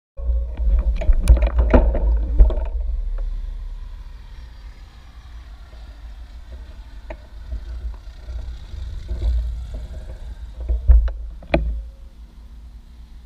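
Wind buffeting the microphone of a handlebar camera as a low rumble. Scattered clicks and knocks come in the first couple of seconds and again near the end.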